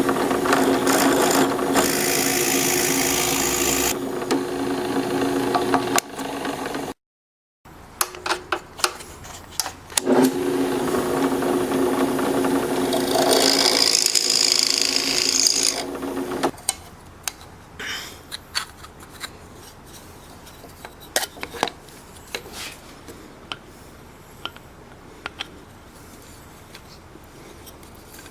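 Electric drill running at a steady pitch while boring holes, in two runs: one for about six seconds, then after a short break another from about ten seconds in, lasting about six seconds. After that, quieter scattered clicks and rubbing of parts being handled.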